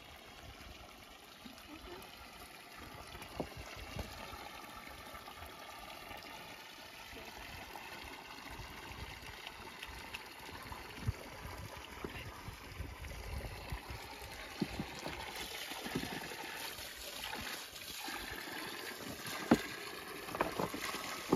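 Water running out of the open end of a hose and splashing onto rocks and grass: a steady trickle that grows a little louder in the second half. A few short knocks and sharp sounds come near the end.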